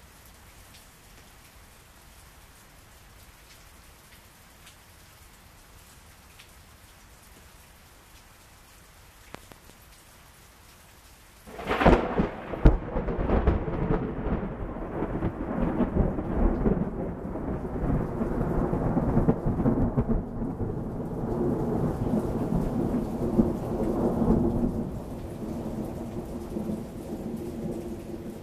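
Heavy rain falling steadily, then about twelve seconds in a sudden sharp crack of thunder that rolls into a long, loud rumble, easing a little near the end.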